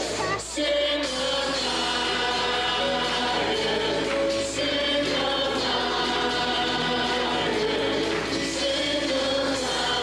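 A choir singing a gospel worship song, backed by a live band with a drum kit and a tambourine struck with a drumstick.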